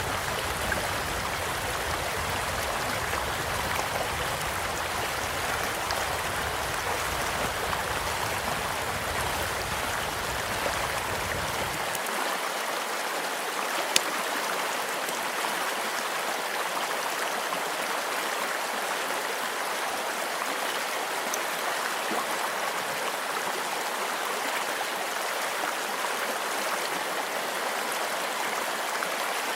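Steady rush of a gently flowing stream, with the occasional sharp pop of a crackling campfire, the loudest pop about fourteen seconds in. A faint low rumble under the water cuts out suddenly about twelve seconds in.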